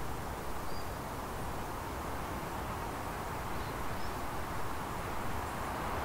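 Outdoor ambience: a steady rushing background noise with a few faint, high bird chirps, once near the start and twice past the middle.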